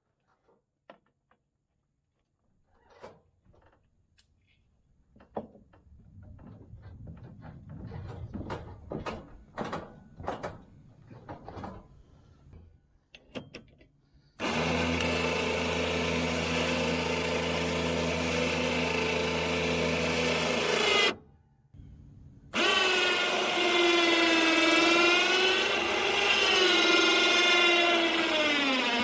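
Badland ZXR 2500 lb electric winch motor starting abruptly about halfway in and running with a steady whine, stopping for a second or so, then running again with the whine wavering and dropping in pitch near the end as it strains to drag a car up onto the trailer on jump-box power. Before it, a scatter of light clicks and knocks.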